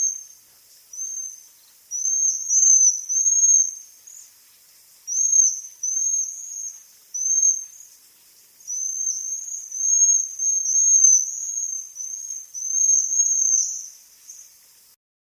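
Waxwings giving high, thin trilled calls in runs of several notes, with short gaps between runs; the recording cuts off suddenly near the end.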